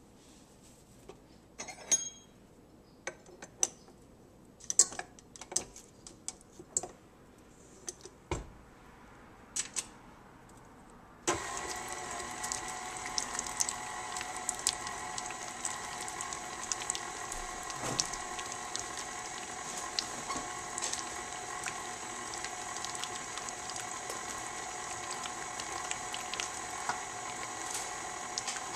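Scattered clicks and knocks of utensils being handled. About eleven seconds in, a KitchenAid Artisan stand mixer switches on suddenly and runs steadily with a whirring motor hum, its flat beater creaming butter and cream cheese in the steel bowl.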